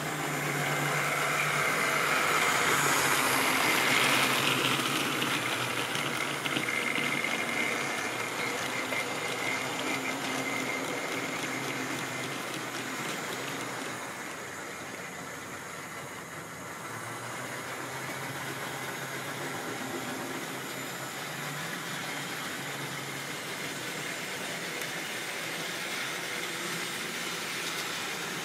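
Model railway goods train running along the track: the small electric locomotive motor whines and the wagons' wheels rattle on the rails. It is loudest in the first few seconds, eases off in the middle, then runs on steadily.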